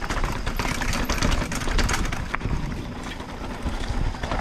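Mountain bike riding over a rough, slippery dirt trail: irregular clattering and rattling from the bike with a low rumble underneath.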